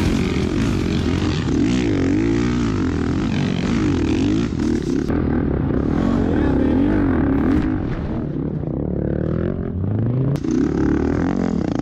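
Onboard sound of a Honda four-stroke dirt bike engine repeatedly revving up and dropping back as it is ridden through soft sand, mixed with wind noise. A sharp click comes about ten seconds in.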